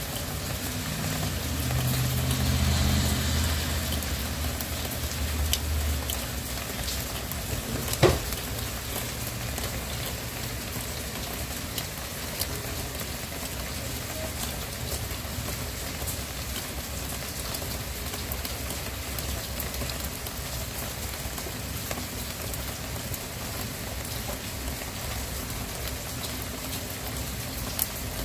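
Steady rain falling, with scattered faint drop ticks. A low rumble swells and fades in the first few seconds, and a single sharp tap about eight seconds in is the loudest moment.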